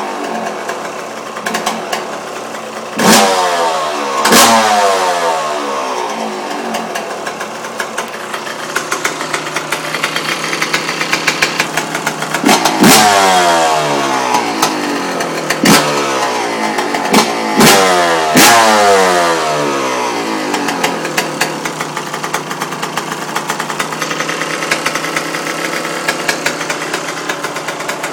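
Yamaha YZ125's 125 cc two-stroke single-cylinder engine idling and revved in sharp throttle blips, about seven in all. Each blip falls quickly back to idle, and it idles steadily through the last several seconds.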